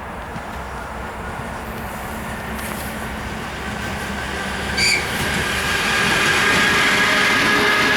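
ED4M electric multiple unit approaching on the track, its rail and wheel noise building steadily louder. About five seconds in there is a short sharp sound, and then steady high tones from the wheels and motors as the train draws level.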